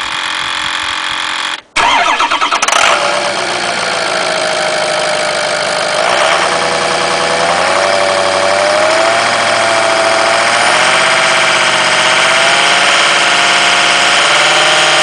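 Ford Excursion's turbo-diesel V8 starting up about two seconds in, then idling with a wavering, wobbling whine over the engine note. The owner takes this for a weird, bad turbocharger sound.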